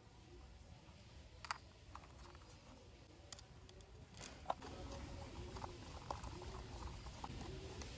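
Faint, scattered clicks of a small screw and hard plastic toy parts being handled, then from about four seconds in a steady run of small ticks and scraping as a screwdriver drives a screw into a plastic toy container body.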